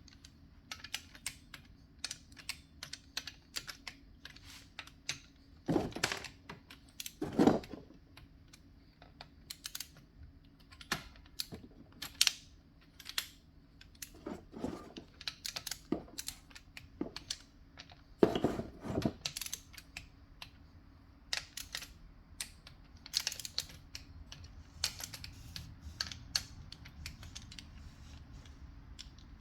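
Hand tools and small metal parts being handled: irregular light clicks and taps, with a few louder scrapes now and then.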